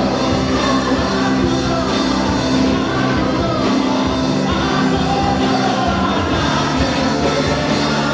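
Live gospel band playing a song with singing over sustained bass and full band accompaniment, steady and loud, in a large hall.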